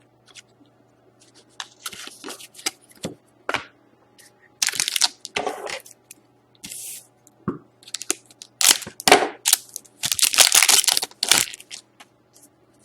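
Trading-card pack wrappers and cards being handled: irregular crinkling, tearing and rustling, loudest a little past the middle. A faint steady electrical hum lies underneath.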